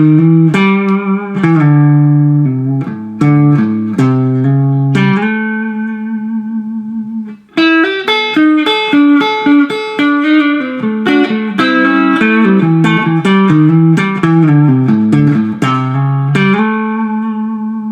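Electric guitar playing a fast country chicken-pickin' lick, hybrid-picked with pick and fingers: two quick runs of notes, each settling onto a held, ringing note, with a brief break about seven and a half seconds in.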